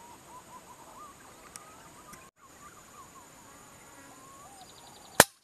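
A single sharp shot from a hunting air rifle, about five seconds in, against faint bird chirps.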